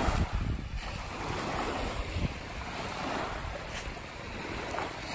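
Small waves washing onto a sandy shore, the rush of water rising and easing in slow swells, with wind rumbling on the microphone.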